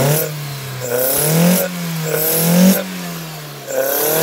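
A 1.6-litre Mazda Miata four-cylinder breathing through GSXR 750 individual throttle bodies with velocity stacks, revved in quick throttle blips. The pitch rises and falls back three times after a first blip that is just ending, with a loud intake sound.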